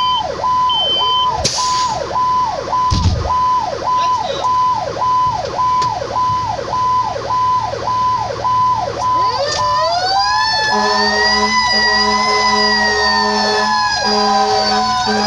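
Fire engine sirens: one siren repeats a quick cycle about twice a second, then a second siren winds up about ten seconds in, its pitch climbing, easing down and climbing again. Repeated horn blasts sound over it.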